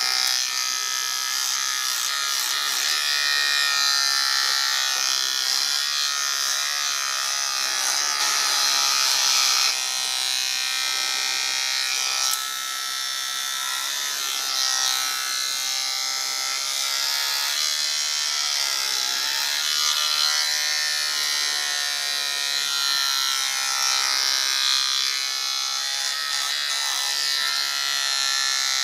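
Small cordless pet hair clipper running continuously as it cuts through a dog's curly fur, a steady electric buzz whose pitch wavers slightly, dropping a little in loudness about twelve seconds in.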